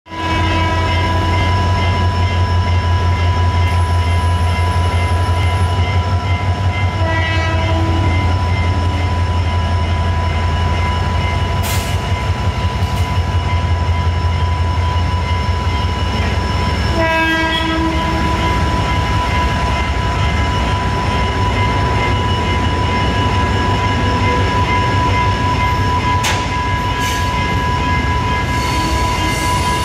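Sri Lanka Railways M11 diesel locomotive passing at slow speed, its engine giving a heavy, pulsing low throb. About halfway through the throb gives way to a rougher rolling rumble as the passenger coaches follow over the rails. A steady high-pitched tone sounds throughout.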